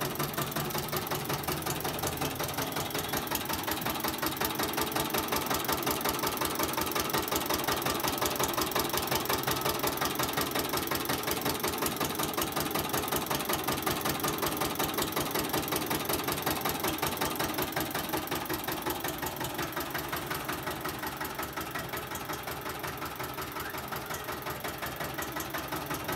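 Engine-driven sugarcane juice crusher running, its engine going with a rapid, even knocking beat as stalks are fed through the steel rollers.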